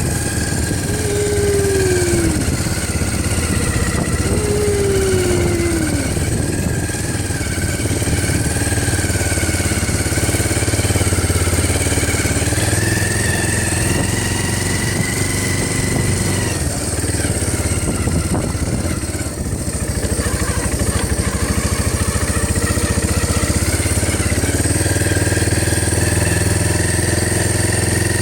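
ATV engine running steadily at low speed, with a higher whine that wavers up and down. Two short falling tones come about one and four seconds in.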